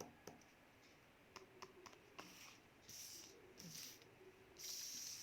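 Near silence: room tone with a few faint clicks and soft hissy rustles.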